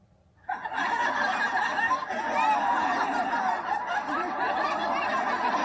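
A group of voices laughing together, many laughs overlapping, cutting in suddenly about half a second in.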